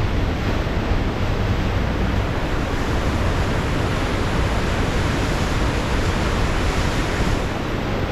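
Pacific Ocean surf: a steady rush of breaking waves with a low wind rumble on the microphone, swelling briefly near the end.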